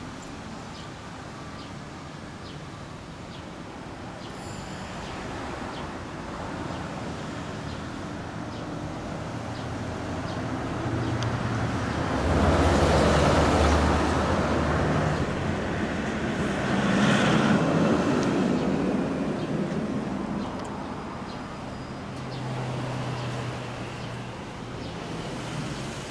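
Street traffic rumbling. A heavy truck, a cement mixer, passes close by about halfway through and is the loudest part, with a second swell of traffic noise a few seconds later.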